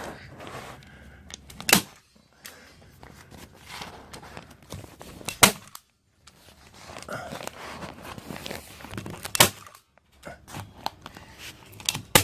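Staple gun firing staples through the paper tabs of faced insulation into the ceiling framing: sharp single snaps several seconds apart, with rustling between them.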